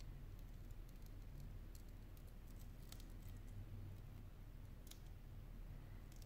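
Faint small clicks and scrapes of a thin metal blade prying at small parts of a disassembled Sony Xperia Z3 Compact phone, over a low steady hum.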